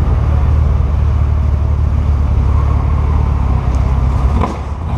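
Built Duramax 6.6-litre V8 turbodiesel running at low speed with a steady, deep rumble while the pickup rolls slowly toward the staging lanes; the rumble dips briefly near the end.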